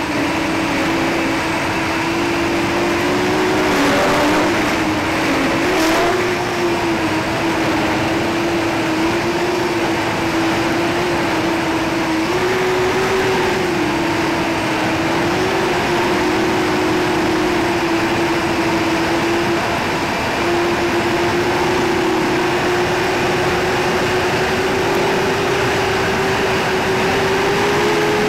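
Hubsan H501SS quadcopter's brushless motors and propellers running hard on a 3S battery, heard from its onboard camera as a steady buzzing hum whose pitch wavers slightly with the throttle.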